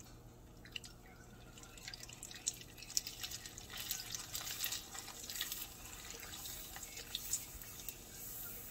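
Cassava crackers frying in hot oil: a sizzle with many small crackling pops, busiest from about two to six seconds in.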